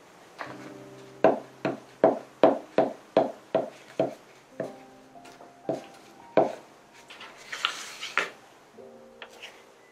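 A run of sharp taps on the desk, about two or three a second, then a glue stick rubbed briefly across paper near the end, over soft background music with held notes.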